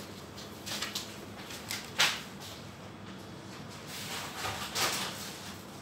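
Plastic bags and packets rustling as they are handled, with a few short sharp clacks; the loudest comes about two seconds in.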